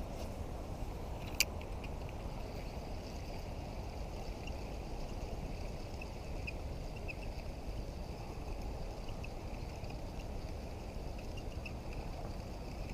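Steady low rush of wind and lapping water around a kayak, with one sharp click about a second and a half in and faint light ticks scattered through it.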